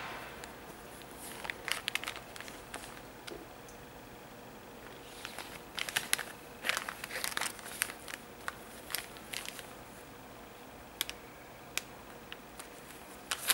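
Thin clear plastic bag crinkling as it is handled. There are clusters of sharp crackles about two seconds in and again from about five to eight seconds, then a few scattered single clicks.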